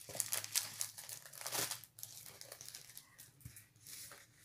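Plastic packaging crinkling as it is handled and pulled open: dense crinkling for about the first two seconds, then lighter, scattered rustling.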